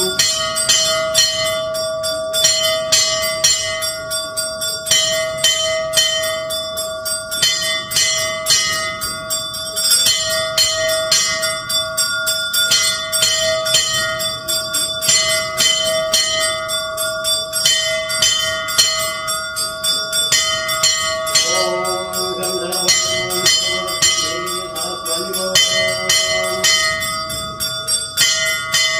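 Temple puja bell rung rapidly and without a break, several strikes a second over its steady ringing tone.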